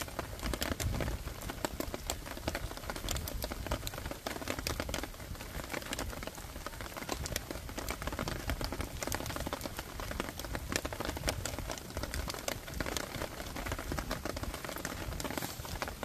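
Heavy rain drumming on a shelter overhead: a dense, irregular patter of drops that keeps on steadily.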